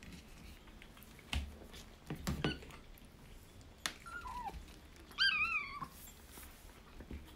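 A kitten meowing twice: a short falling mew about four seconds in, then a louder wavering meow just after five seconds. Before them come scattered clicks and knocks from kittens eating dry kibble out of ceramic bowls.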